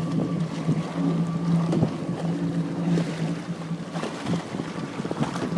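Jetski engine idling steadily on the water, with small splashes of water against the hull.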